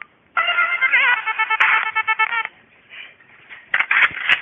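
A short electronic melody of steady, beeping notes with a warble in the middle, like a mobile phone ringtone, lasting about two seconds. Near the end, a burst of clattering, noisy sound.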